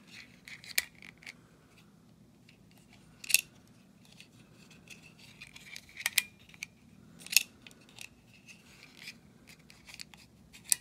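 Plastic clamp weapon of a Masters of the Universe Origins Clamp Champ action figure being squeezed and released by hand, its jaws snapping with sharp clicks a few seconds apart and lighter plastic ticks between.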